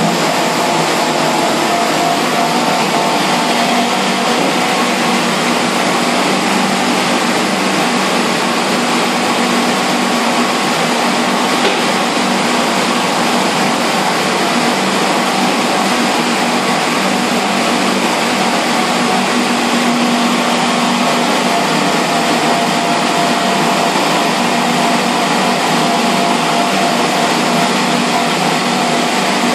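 Industrial salad and vegetable washer running: a steady machine hum with water churning through the tank as lettuce tumbles in it.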